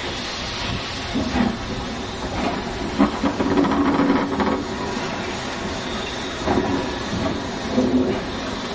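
Hunslet Austerity 0-6-0ST saddle tank steam locomotive moving slowly past close by: a steady hiss of steam with irregular clanks and rattles from the wheels and motion, loudest for about a second and a half in the middle.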